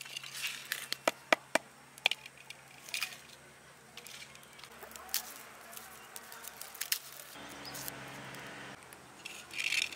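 Small sharp clicks and taps of fingers handling green chillies on a terracotta plate, then lighter cracking and papery rustling as a garlic bulb is broken into cloves and peeled.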